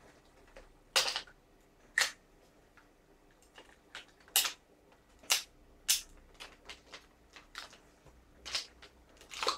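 Sharp mechanical clicks and clacks from a WE M4 gas-blowback airsoft rifle's parts being fitted and worked by hand. About seven loud clicks come at irregular intervals, with fainter ticks between them.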